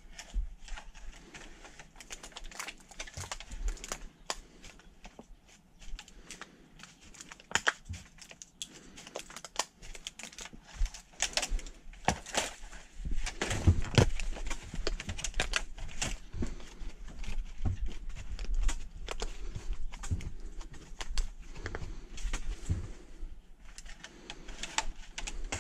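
Thin plastic seedling trays clicking and rattling as gloved hands press an empty tray down into soil-filled trays to dent the soil, with irregular taps and rustles that are busiest about halfway through.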